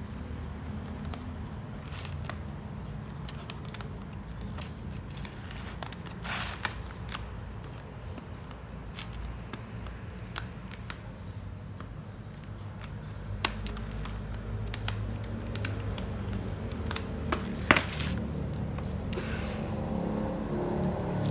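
Packaging being handled and opened: scattered sharp clicks, scrapes and crinkles over a steady low hum.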